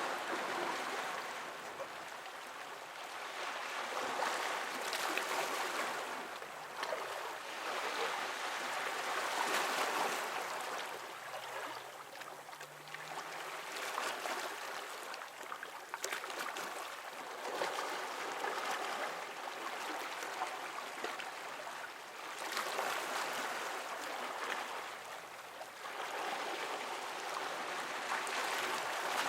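Small waves lapping at the water's edge and washing over rocks, swelling and fading every few seconds, picked up by a microphone set close to the water.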